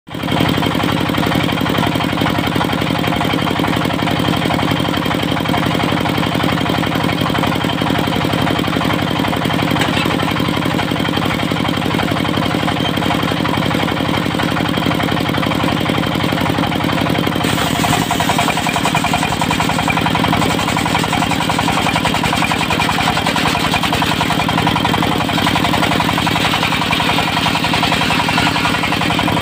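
Dongfeng diesel engine running steadily, driving a mobile circular sawmill. About two-thirds of the way through the engine note shifts and a higher hiss comes in.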